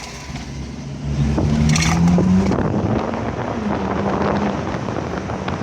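Ferrari 458 Italia's V8 engine and exhaust accelerating, its pitch rising from about a second in, then running on at a fairly steady pitch.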